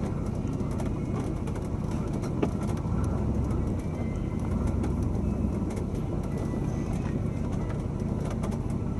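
Car engine and cabin rumble, heard from inside the car as it creeps slowly over grass: a steady low drone with a few faint ticks and rattles.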